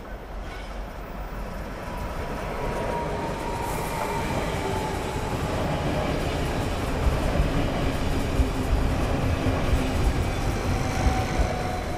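SBB double-deck electric multiple unit (Stadler KISS) passing on the track, its running noise growing steadily louder as it approaches. A faint, slowly falling whine runs under it, and sharp wheel clicks over the rail joints come in the second half.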